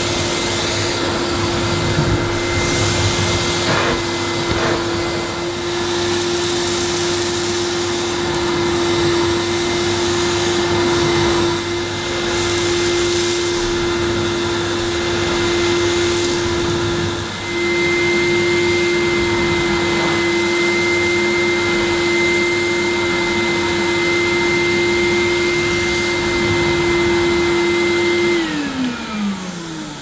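Hoover Maestro bagged cylinder vacuum cleaner running at a steady pitch with a high whine, its floor head pushed over carpet, with a few brief clicks now and then. Near the end the motor is switched off and its pitch falls as it runs down.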